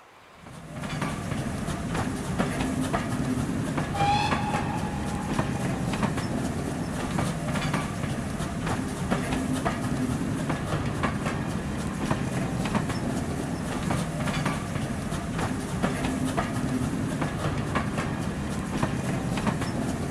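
A train running past, its wheels clicking again and again over the rail joints, with a brief whistle about four seconds in.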